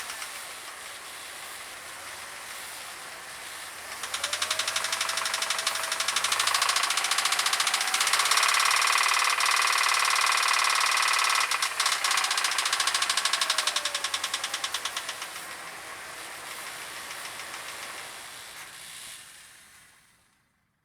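Jeep Grand Cherokee engine running with a fast, even tapping or knocking from the motor. The engine is revved up about four seconds in, held, then eased back down, and the sound dies away near the end. The owner does not know the cause of the noise.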